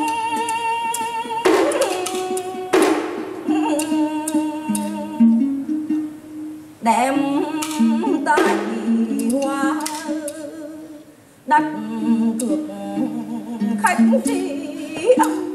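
Ca trù music: a đàn đáy long-necked lute plucking a melody that steps between a few low notes, punctuated by about six sharp strikes of the trống chầu drum and phách clappers. A sung note with a wavering vibrato is heard near the start and again around the middle.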